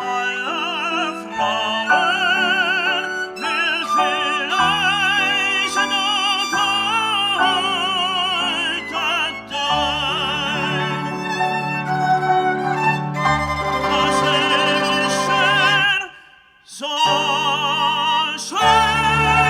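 Operatic singing with strong vibrato over an instrumental accompaniment of strings and piano. The music changes abruptly several times, as in a run of short excerpts, and drops out briefly about three-quarters of the way through.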